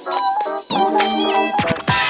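Background music: an electronic track with a melodic synth line over percussion.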